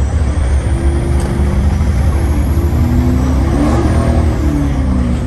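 A truck engine running close by, with a loud, steady deep rumble.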